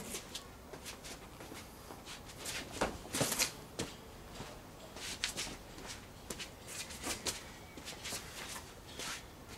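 Irregular short scuffs and swishes from shadowboxing footwork on patio paving stones, along with swings of a short polypropylene bat. The scuffs come in clusters a few seconds in and again in the middle.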